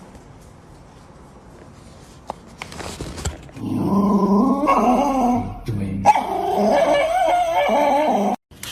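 A dog vocalizing in long calls that waver up and down in pitch. They start about three and a half seconds in and cut off abruptly near the end.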